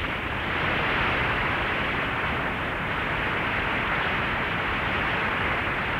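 Audience applauding in a steady, dense wash of clapping.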